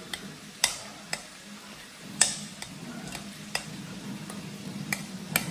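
Metal utensil mashing boiled potatoes in a stainless steel pot, with several sharp clinks as it strikes the pot. Beneath it is a steady sizzle of fish frying in oil.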